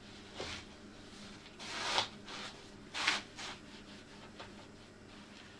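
Release-agent paste being rubbed by hand into a wind-turbine blade mould: a few short scrubbing strokes, the loudest swelling to a peak about two seconds in, then a sharp one about a second later.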